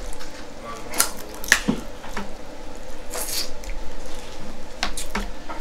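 Sharp clicks and cracks of crab shells and utensils being handled while eating a seafood boil, a handful of separate snaps spread through the stretch.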